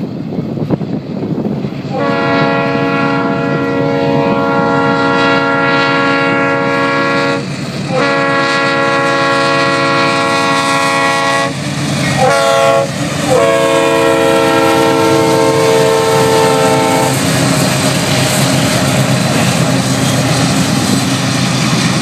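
Diesel locomotive's multi-chime air horn sounding the long, long, short, long grade-crossing signal as a ballast train approaches. After the horn stops, the locomotives' engines and the steel wheels of the hopper cars are heard running past on the rails.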